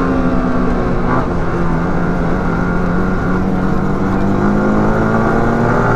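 Sport motorcycle engine running under way at fairly steady revs that drift slowly up and down, with wind rush over the rider. A second sport bike rides close alongside.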